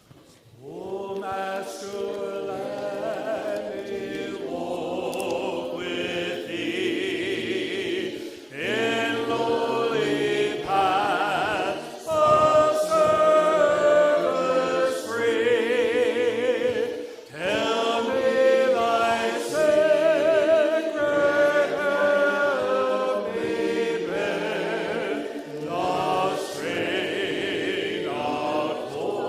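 Worship singing in a church service: voices singing a slow song in long, wavering phrases, starting about a second in after a brief hush.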